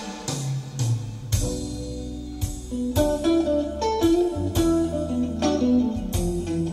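Recorded music led by plucked guitar over a steady bass line, with sharp percussive hits every second or so, played back over a pair of Wolf von Langa loudspeakers driven by tube amplifiers.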